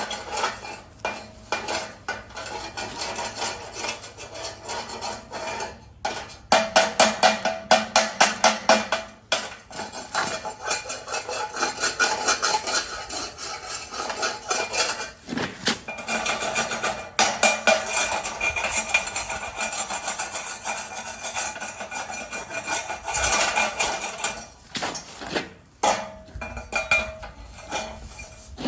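Metal hand tools clinking and scraping against each other as they are handled and sorted, including a run of quick, evenly spaced strokes, about four a second, lasting a few seconds.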